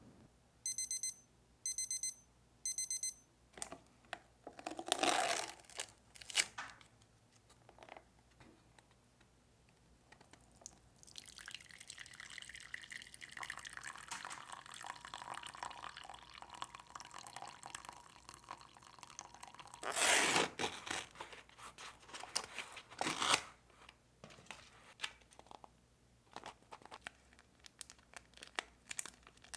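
Three short electronic beeps from a kitchen appliance, then plastic packaging rustling. Water pours steadily for about nine seconds, followed by two loud bursts of crinkling and tearing of instant-noodle packaging.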